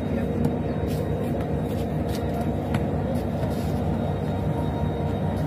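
Steady low hum of a diesel passenger train standing at the platform with its engine idling, with a few faint sharp clicks over it.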